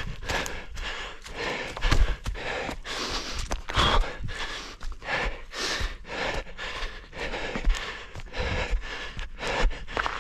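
A running orienteer's heavy, rapid breathing close to the head-mounted microphone, with the thud of footfalls on the forest ground underneath.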